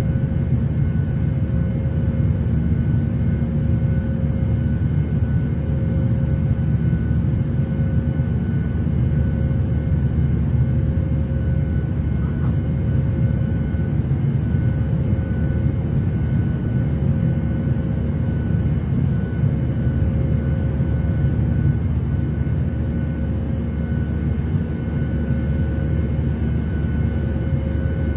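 Airliner cabin noise in flight: a steady low rumble and rush of engines and air, with a faint steady hum over it.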